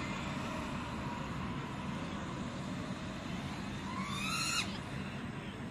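FPV quadcopter's motors whining in flight over a steady background noise; about four seconds in, the whine climbs sharply in pitch and then cuts off abruptly.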